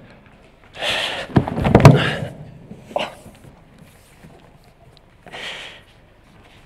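A man's body hitting a stage floor as he drops down to lie on it: a few heavy thuds between one and two seconds in, loudest of all, with a rush of breath picked up by his headset microphone. A short breath or exhale follows near the middle and again later as he begins to push himself back up from the floor.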